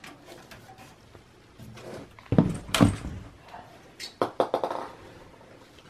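Steel desktop PC chassis of a Dell XPS 8900 being handled and set down on a table: two loud thumps a little past two seconds in, then a quick run of light metallic clicks and rattles.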